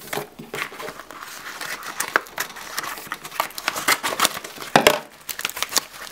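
Scissors snipping through a plastic mailing bag, the plastic crinkling and rustling as it is cut and handled, in irregular crackles. One sharper, louder click comes just under five seconds in.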